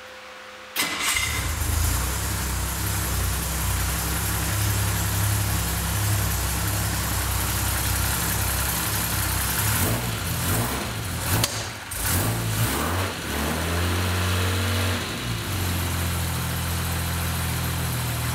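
Jaguar E-Type's twin-cam straight-six engine with triple SU carburettors starting. It fires up suddenly about a second in and settles into a steady idle. Past the middle it is revved a few times, rising and falling, then it returns to an even idle.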